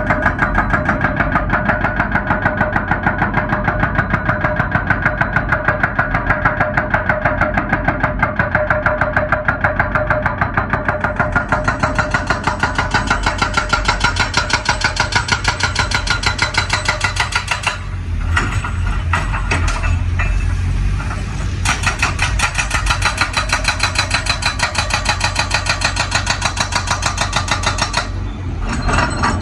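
Excavator-mounted hydraulic breaker hammering hard rock in rapid, even blows, over the excavator's engine running. The hammering stops for a few seconds about two-thirds of the way through and again near the end, leaving the engine alone.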